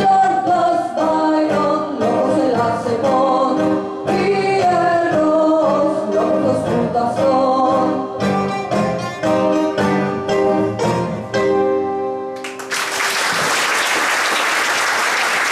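A song, sung with instrumental accompaniment, ends about twelve seconds in and is followed at once by steady audience applause.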